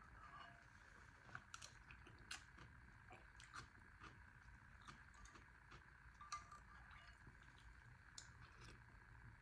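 Faint eating sounds: quiet chewing and a few small scattered clicks over a steady low background hum.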